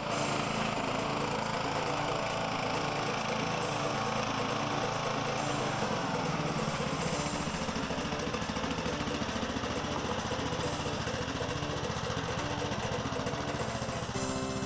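Craftsman YS 4500 lawn tractor engine running steadily as the tractor is driven.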